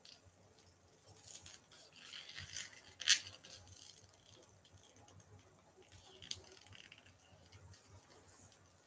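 Faint rustling and creaking of a large black Perlina leather tote being handled and turned over, with a sharp click about three seconds in and a smaller one about six seconds in.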